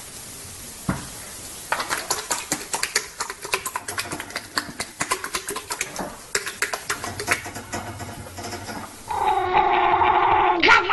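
Rapid, irregular clicking and tapping for several seconds, then a loud, drawn-out pitched animal cry starting near the end.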